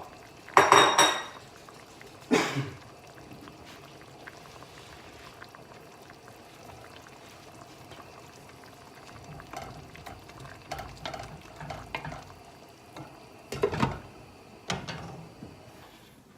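A pot of caldereta simmering on the stove with a low steady bubbling, broken by clanks and knocks of metal cookware: a loud ringing clank about a second in, another soon after, and lighter clinks later on.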